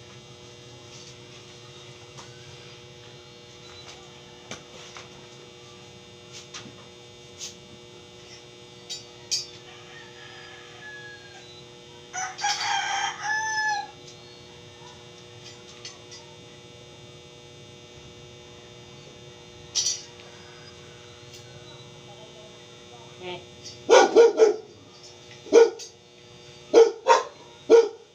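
A rooster crows once, a call of about a second and a half, partway through, over a steady electrical hum and a few light clinks of steel bars being handled. Near the end a dog barks several times.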